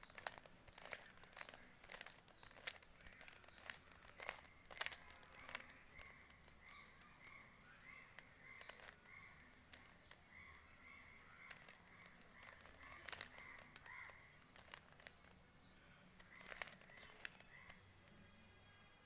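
Rubik's cube layers being turned by hand: a run of quick, faint plastic clicks and clacks. From about five seconds in, a bird's rapid repeated chirps sound in the background.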